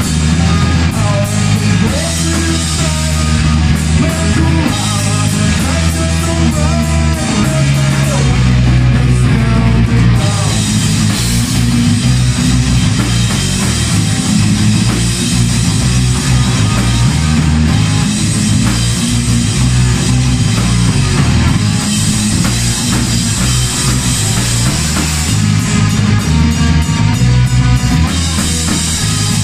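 Rock music with guitar, bass and a drum kit, playing loud and steady; a melodic guitar line stands out over the stepping bass for the first seven seconds or so, after which the band plays denser.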